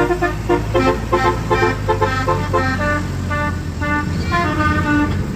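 A telolet multi-tone horn playing a quick melodic tune of short notes, about four or five a second, then slower held notes from about halfway, over a running engine's low hum.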